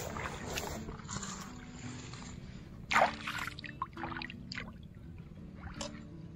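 Shallow paddy water sloshing and splashing as bare feet wade through it, with a sharp, louder splash about three seconds in and a few smaller ones after. A soft background tune plays underneath.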